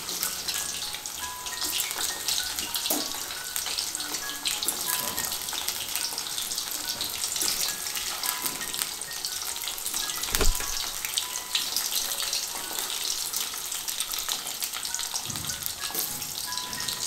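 Batter-coated cauliflower florets deep-frying in hot oil in an aluminium kadai, a dense, steady crackling sizzle as more pieces are dropped in. A single knock about ten seconds in is the loudest moment.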